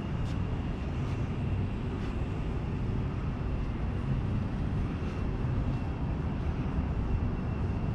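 Steady low outdoor rumble with a faint, thin high-pitched whine above it.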